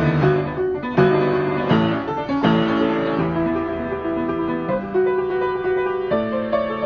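Piano keyboard playing a slow improvised passage of held notes and chords. A new chord is struck every second or two and left to ring and fade.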